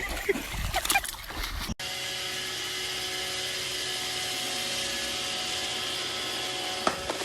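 A small electric motor running steadily with a constant whine, starting abruptly about two seconds in. Before it come brief clicks and voices.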